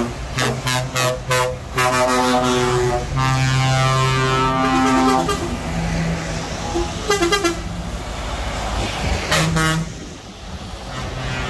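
Truck air horns sounded by passing trucks: a quick series of short toots, then a long horn blast of several tones lasting about three seconds, and two more brief blasts later on. Diesel truck engines run underneath.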